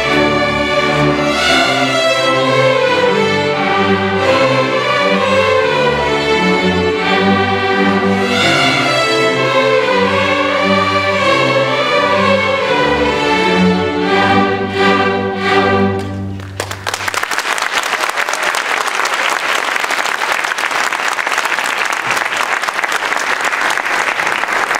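Polish Highlander fiddle ensemble with a string orchestra, fiddles and cellos playing a lively folk tune that ends about 16 seconds in with a few sharp closing chords. Audience applause follows.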